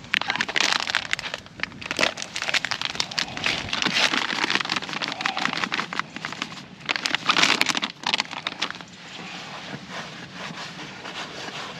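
Plastic bag of Bait-Tech Special G Margin Mix groundbait crinkling as the dry groundbait is tipped out into a plastic bait bowl, with a dense crackling rustle. Near the end it turns to a softer rustle as hands stir the groundbait in the bowl.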